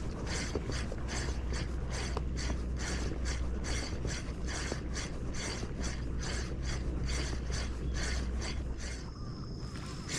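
Spinning reel being cranked to retrieve line, its gears whirring in an even rhythm of about three strokes a second, with wind rumbling on the microphone. The cranking stops near the end.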